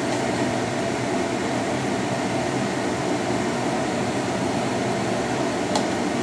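Steady whir of a fan, with one light click near the end.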